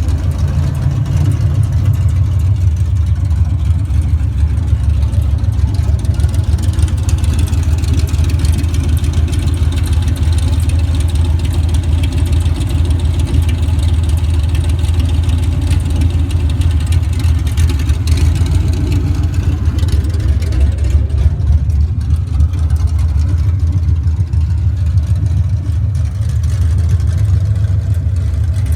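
Chevrolet Camaro's LT1 V8 with an aftermarket camshaft, idling steadily with a deep muffler tone and a light tapping heard over the exhaust note.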